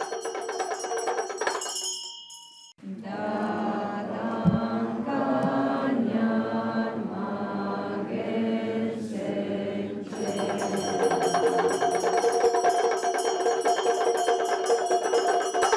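Tibetan Buddhist prayers chanted by voices in a sustained, pitched recitation. It breaks off briefly about three seconds in, then resumes with a low, deep drone that gives way near ten seconds to a brighter, higher chant.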